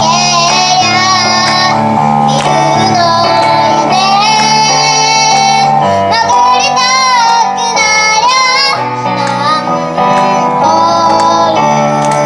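A young girl singing a melody with vibrato over instrumental music.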